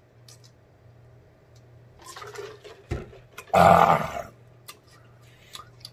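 A man burps once, loudly, a little past halfway through, after a long drink from a plastic jug; a short knock comes just before it.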